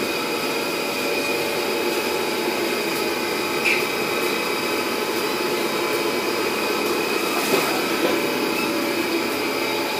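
A steady mechanical whirring hum of a running machine, with a few faint knocks partway through.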